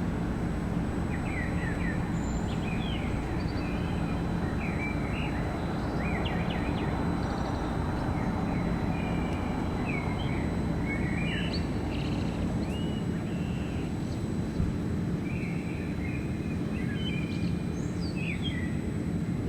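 Many small birds chirping and calling in quick short notes over a steady low hum.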